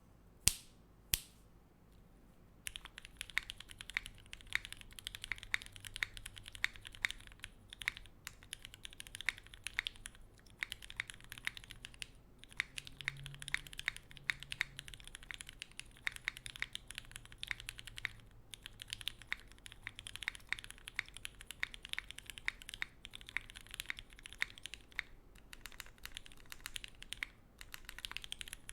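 Phantom65 mechanical keyboard with lubed Gateron Clear linear switches on an o-ring mounted POM plate, typed on in a fast, dense stream of key clacks with short pauses. Two sharp single clicks come within the first second or so, before the typing starts.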